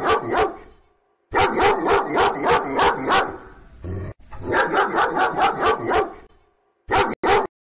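Dog barking in quick runs of about four or five barks a second, three runs of about two seconds each, then two short barks near the end.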